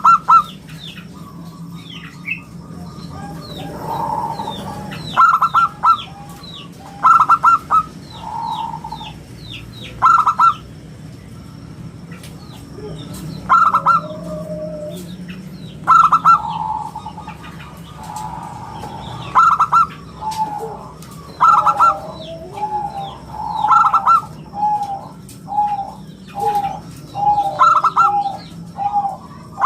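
Zebra dove (perkutut) cooing: loud phrases of quick staccato notes repeated every two to three seconds. From about two-thirds of the way in, a steady string of lower, evenly spaced coo notes runs between the phrases, with faint high chirps in the background.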